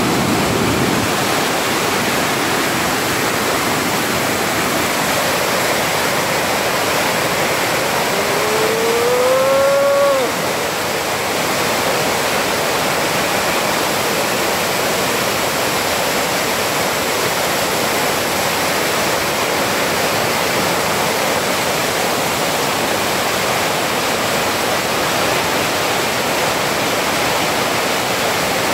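Muddy floodwater from heavy rain rushing over rocks in river rapids: a steady, loud roar of churning water. About eight seconds in, a single drawn-out note rises slightly in pitch for about two seconds over the water noise, then cuts off.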